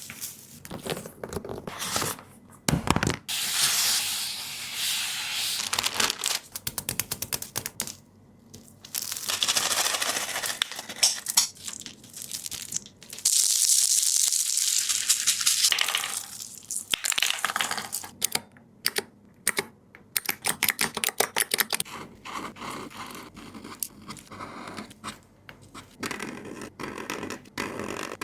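Hands working the toys on a handmade fidget board: stretches of scratchy, tearing noise alternating with runs of rapid clicks.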